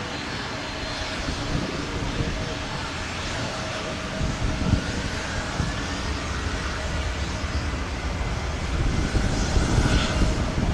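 Jet aircraft engines of a Delta Boeing 767-400ER running as the airliner taxis, a steady rushing roar that slowly grows louder, with a faint rising whine in the middle.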